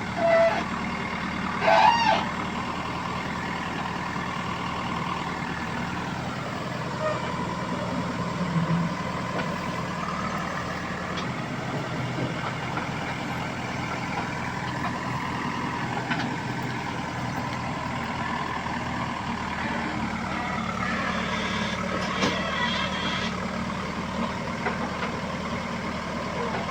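Diesel engine of a JCB 3DX backhoe loader running steadily under working load, with a whine that rises and falls in pitch as the engine speed changes. Two brief loud sounds come near the start.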